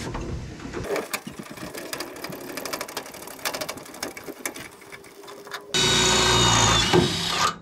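Metal clicking and clunking as an outboard lower unit on a pivoting mount is swung by hand back down into its lowered water position. About six seconds in, a cordless drill starts and runs steadily, boring through aluminium sheet, then stops just before the end.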